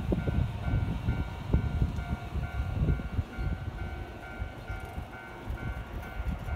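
Keio 8000 series electric train rumbling slowly past with uneven wheel clatter. Over it a level-crossing warning bell dings steadily, about twice a second.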